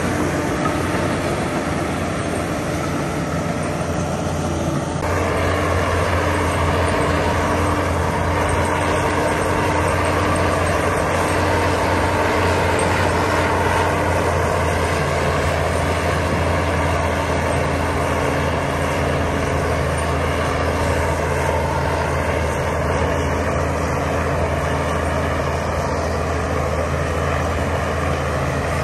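Diesel engine of heavy earthmoving machinery running steadily, picking up and getting louder about five seconds in, with smaller shifts in its note later on.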